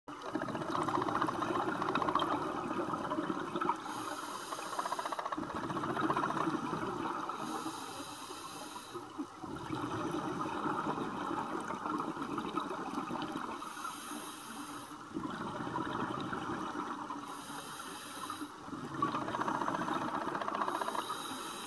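A diver's scuba regulator breathing underwater: a short hiss of inhalation through the demand valve, then a longer burst of exhaled bubbles gurgling out, about five breaths.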